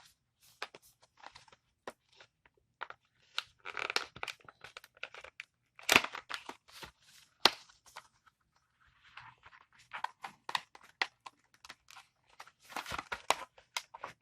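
A small product box and its packaging being opened by hand: irregular rustling, crinkling and tearing with sharp clicks and snaps. The loudest snaps come about six and seven and a half seconds in.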